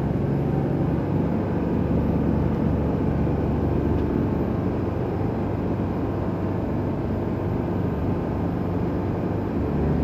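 Volvo Penta IPS500 diesel engines of a planing motor cruiser running steadily under power while it speeds up towards 3,000 rpm, a low hum under a constant rush of wind and water.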